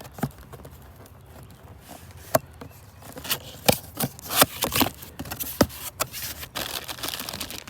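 Engine rebuild parts and their packaging being handled: scattered light clicks and knocks, irregular and a few per second from about two seconds in.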